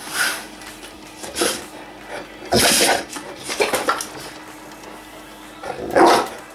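Cane Corso dog making about five short begging vocalizations, the loudest about two and a half seconds in and near the end.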